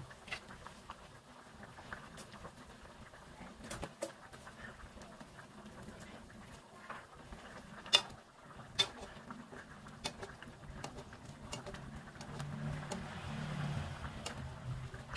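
Chicken soup simmering in a metal pan with a soft bubbling patter. A metal ladle clinks twice against the pan about eight seconds in, then scoops and stirs through the broth near the end.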